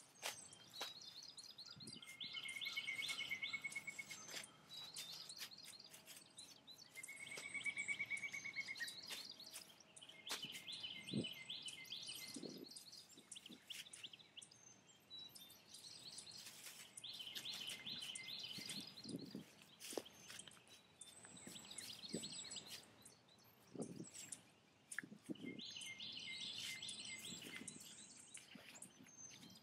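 Birds singing, short phrases and a trill recurring every few seconds, over scattered crinkling and rustling of plastic bags and a fabric tarp being handled and folded.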